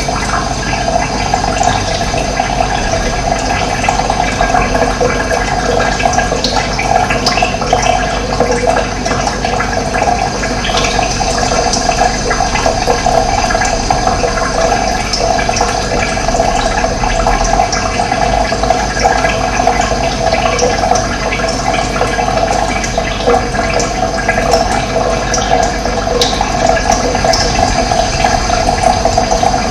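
Running water flowing steadily, an even, unbroken rush.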